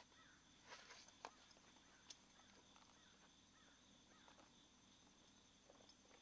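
Near silence: faint outdoor morning ambience with a steady high insect drone, soft bird chirps repeating every second or so, and a few faint clicks in the first couple of seconds.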